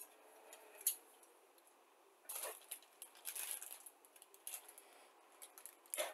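Faint handling noise from plastic model-kit sprues: two light clicks of the parts knocking, then, from about two seconds in, short bursts of a clear plastic bag of sprues rustling and crinkling.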